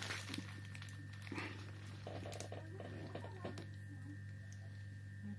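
Small clicks and brief rustles of a Samsung Galaxy smartphone being handled and its frame pressed together by hand, over a steady low electrical hum.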